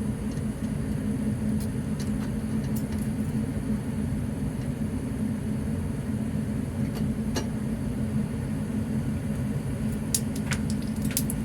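A steady low hum runs throughout. Over it come a few faint clicks, and a quick run of clicks near the end.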